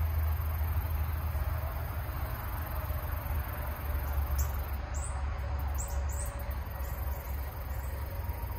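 Pond-side evening ambience: a steady low rumble with a run of short, high chirps from a small animal a little past the middle.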